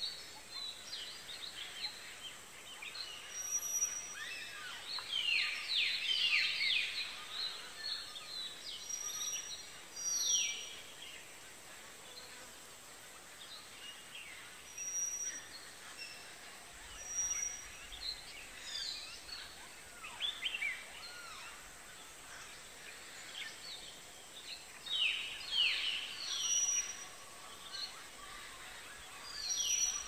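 Songbirds singing: clusters of quick, high chirps and whistles that slide downward, coming in bursts every few seconds.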